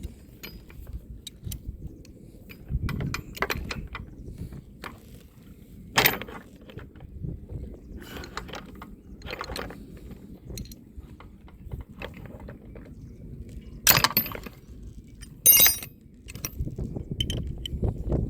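Metal clinking and jangling of anchor chain and a shackle being handled, with three loud clanks spread through, over a low background rumble.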